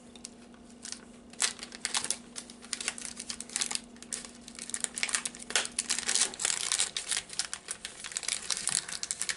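A crinkly plastic snack wrapper being handled and crumpled, giving rapid, irregular crackles that start about a second and a half in and keep going.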